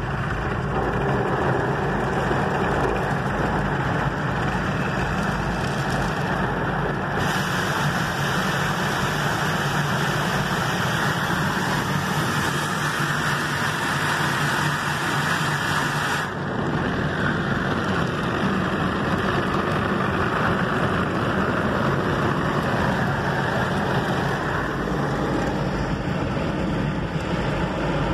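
Automatic car wash running, heard from inside the car's cabin: brushes and water spray washing over the bodywork and windscreen make a steady wash of noise, with a hissier stretch in the middle.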